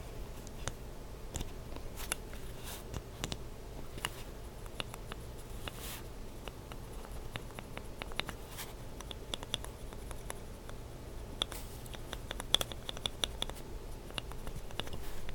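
Lubed linear mechanical keyboard switches with Kailh Burgundy stems being pressed by hand: scattered short clicks as the stems bottom out and spring back, with a quicker flurry about twelve seconds in.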